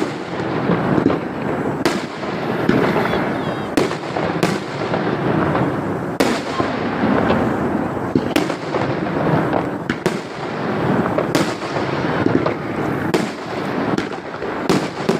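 Fireworks display: aerial shells bursting in sharp bangs, about a dozen at irregular gaps of one to two seconds, over continuous dense crackling.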